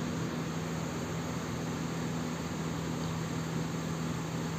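Bay leaves in hot oil in a nonstick pan sizzling gently, a steady hiss over a constant low hum.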